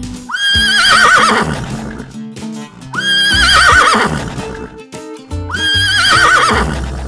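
Horse whinnying three times, each a high call that jumps up and then shakes as it falls away, over background music.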